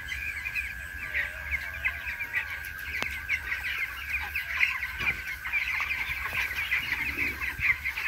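A flock of 17-day-old broiler chicks cheeping continuously, with many short high calls overlapping. A steady high-pitched hum runs underneath.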